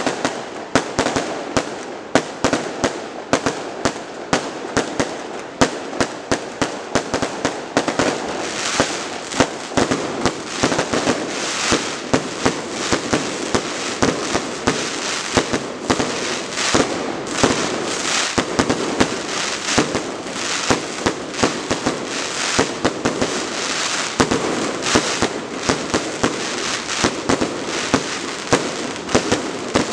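Fireworks display: a rapid, continuous barrage of sharp bangs, several a second.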